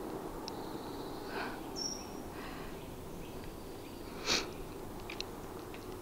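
Quiet winter woodland ambience with a faint steady hiss, a short high chirp about two seconds in, and a brief breathy noise a little past four seconds, the loudest moment, followed by a few faint clicks.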